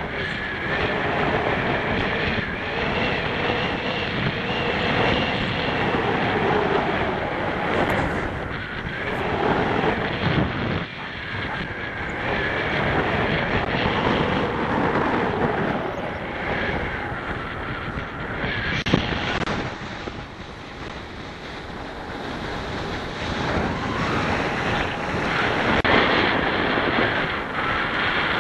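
Wind rushing over the microphone of a soaring paraglider, rising and falling in strength as it flies, with a faint wavering tone underneath.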